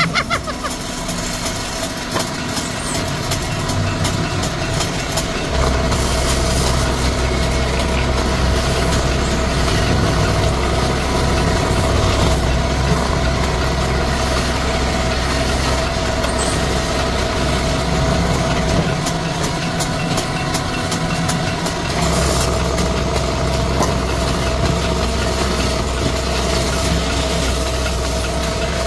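Wood lathe running steadily, spinning a turned charpai leg while lac colour sticks are pressed against it: a constant machine hum with a low drone that drops away for a few seconds about two-thirds through, then comes back.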